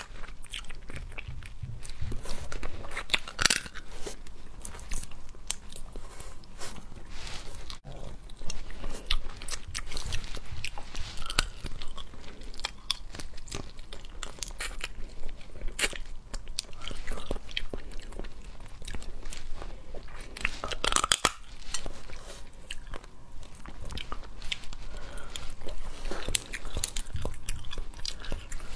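Cooked crab claws being bitten and eaten: shells crunching and cracking between the teeth, with chewing between the sharp crunches. A dense run of loud cracks comes about three-quarters of the way through.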